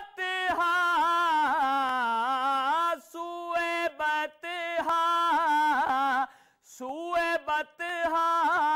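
A man singing an Urdu naat unaccompanied: a long, drawn-out melodic run with wavering held notes. The voice breaks off briefly for breath a few times.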